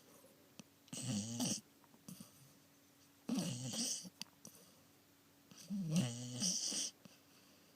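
Labrador retriever snoring in its sleep: three snores about two and a half seconds apart, the last one the longest.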